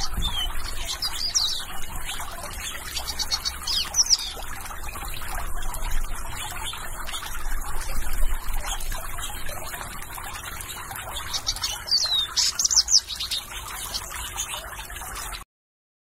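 Water trickling and splashing in a fountain birdbath as small birds bathe in it. Short, high bird chirps and quick downward-sweeping notes come in clusters about a second in, around four seconds in and again around twelve to thirteen seconds in.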